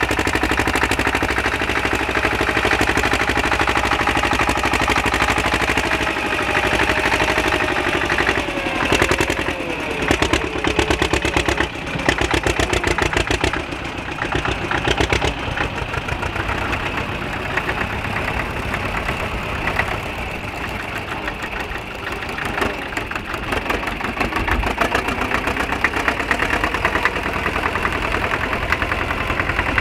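Vintage farm tractor engines running under load while pulling ploughs through soil. The pitch drops about eight seconds in, and a slow, even beat of firing strokes follows for several seconds.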